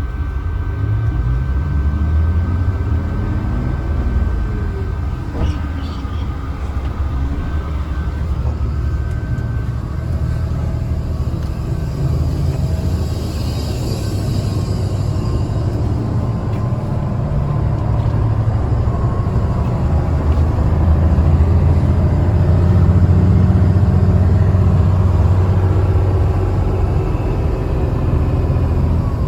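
Mercedes-Benz O307 bus heard from inside the passenger cabin while driving: the engine drones, its pitch rising and falling as the bus pulls away, shifts and slows. A short hiss comes about halfway through.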